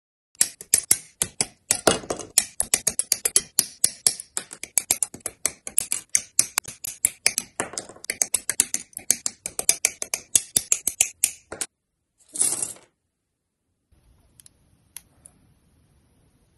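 Rapid run of sharp clicks from hobby nippers snipping plastic model-kit parts off their runner, many snips a second, stopping about three-quarters of the way through. A brief rasping noise follows, then faint small clicks as plastic parts are pressed together.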